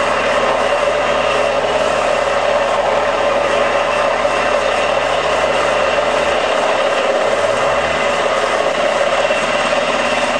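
Small electric motor spinning the rotor of a model helicopter, running steadily with a mechanical whir. A low hum underneath shifts in pitch about six to seven seconds in, as the model swings.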